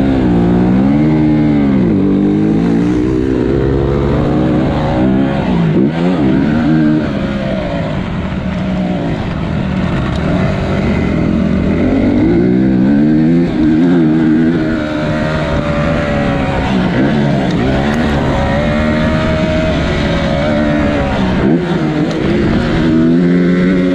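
Motocross bike's single-cylinder engine being ridden hard round a dirt track, its pitch repeatedly rising and falling as the rider opens and shuts the throttle and shifts gears through the corners and straights.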